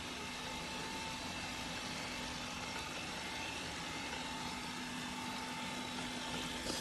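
Narwal Freo X Plus robot vacuum running a cleaning task: a steady whirring hiss of its suction fan with a constant whine held through.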